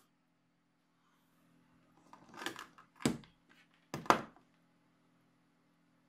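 A few sharp clicks and knocks from a hand working the controls of a small amplifier circuit board, the loudest about four seconds in, over a faint steady low hum.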